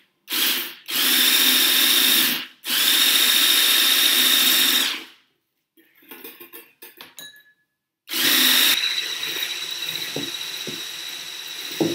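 Corded electric stick blender with a wire whisk attachment whisking milk and Angel Delight powder in a bowl. The motor runs in three bursts with a high whine, a short one and then two of a couple of seconds each. After a few light clicks and knocks it runs steadily again from about eight seconds in.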